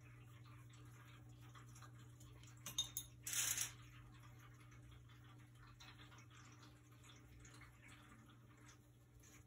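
Paintbrush rinsed in a glass jar of water: a few light clicks against the glass and a short swish about three seconds in, over a faint steady hum.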